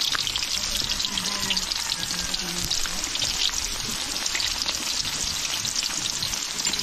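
Pieces of dried giant moray eel deep-frying in hot oil in a large wok, sizzling with a steady, dense crackle.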